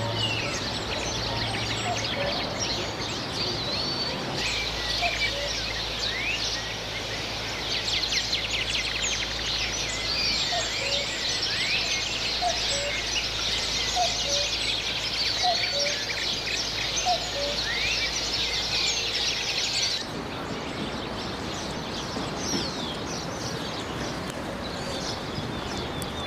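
Many birds chirping and twittering in quick, overlapping calls, with a few lower call notes repeating about once a second. The background shifts abruptly about four seconds in and again near the end.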